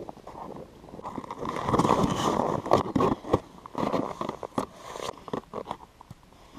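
Boots crunching and scraping on snow-covered ice, with clothing rustle close by, in irregular bursts of crunches and clicks from about a second and a half in, tailing off near the end.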